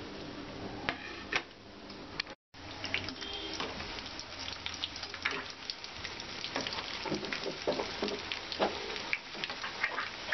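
Gram-flour-battered bread fingers deep-frying in hot oil in a kadhai: a steady crackling sizzle, stirred with a steel slotted spoon. The sound drops out for a moment about two and a half seconds in, then the frying carries on.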